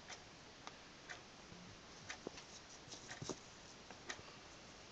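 Faint, scattered clicks and small taps at irregular intervals over quiet room tone.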